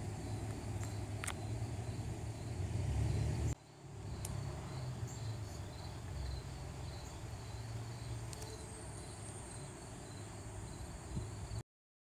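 Insects chirping in a fast, steady pulsing trill over a low outdoor rumble. The sound dips briefly about a third of the way in.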